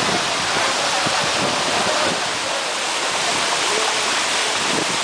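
Steady, dense rush of water from Madhabkunda waterfall, a fall about 200 ft (61 m) high.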